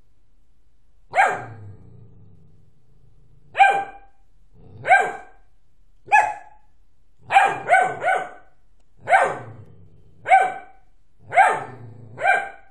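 Doberman barking: about eleven sharp single barks spaced roughly a second apart, with a quick run of three in a row near the middle.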